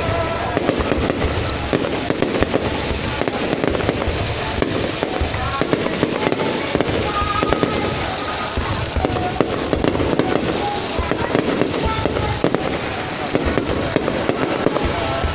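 Fireworks going off in a dense, continuous barrage of bangs and crackles with no break.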